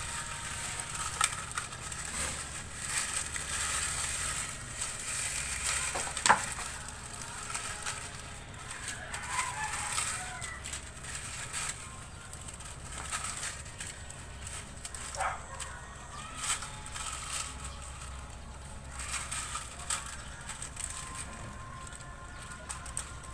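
Crackling and clicking of cut plastic bottles being handled and fitted together, with scattered sharp clicks and a louder knock about six seconds in.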